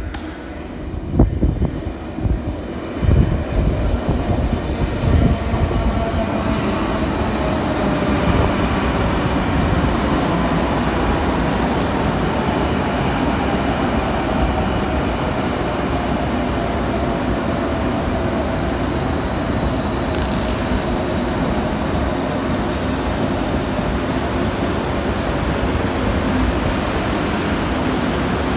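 Electric passenger train running, with a few sharp knocks in the first few seconds, then a steady rumble with a faint whine that slowly falls in pitch.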